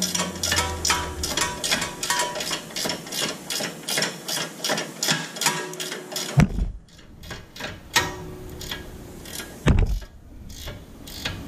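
Long ratcheting gear wrench clicking rapidly, about four clicks a second, as it is swung back and forth to back out a lower ball joint bolt. About six seconds in the clicking stops with a low thump, then a few more clicks follow, and another thump comes near the end.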